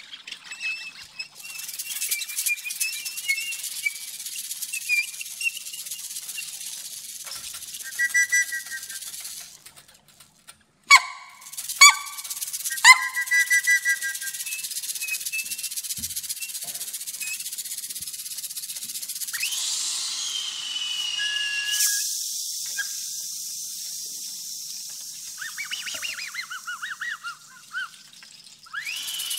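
Hand-held whistles imitating bird calls: high chirping whistle tones and short pitch glides over a faint high hiss, with three short, loud calls about a third of the way in and a falling glide about two-thirds of the way through.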